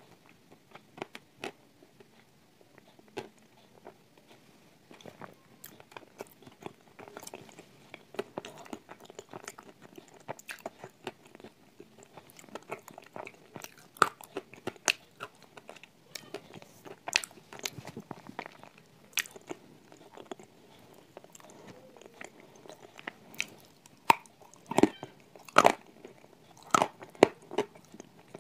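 Crunching and chewing of cream-coated Turkistan tile, an edible clay, close to the mouth: a run of sharp crunches between quieter chewing, growing louder with bigger bites near the end.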